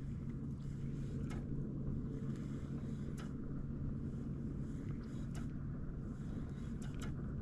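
Steady low drone of a motorboat's outboard engine running across open water, with a few faint ticks spaced about two seconds apart.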